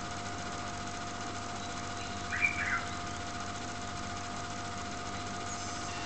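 Steady machine hum with a constant mid-pitched whine, and a brief short chirp about two and a half seconds in.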